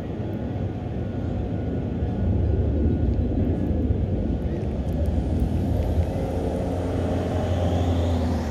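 A steady low rumble of outdoor background noise, with a faint rising whine near the end.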